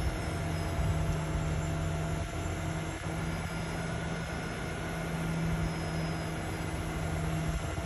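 Semi truck's diesel engine running steadily to drive the hydraulic hoist of a raised end-dump trailer, a constant drone with a steady hum while the load of logs waits to slide out.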